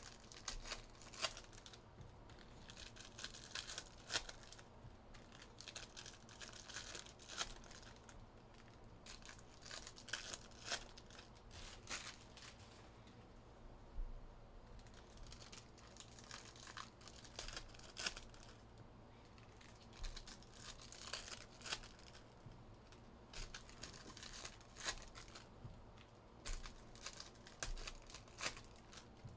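Panini Mosaic hobby card packs being torn open and handled: plastic wrappers crinkling and tearing in scattered short crackles and rustles, with a couple of brief lulls.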